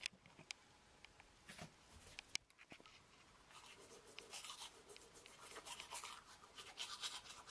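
A few sharp clicks and knocks, then, from about three and a half seconds in, the faint, irregular scratchy scrubbing of a manual toothbrush brushing teeth.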